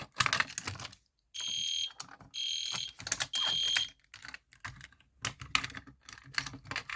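Clicking and rattling handling noise, then a fire alarm horn sounds three short blasts in a row, a temporal-three evacuation pattern. This is the EST Genesis G1-HDVM horn strobe. More clicking and rattling follows.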